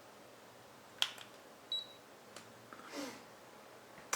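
Handheld thermometer being triggered to take a temperature reading: a sharp click, then a short high beep, with a few more clicks after it.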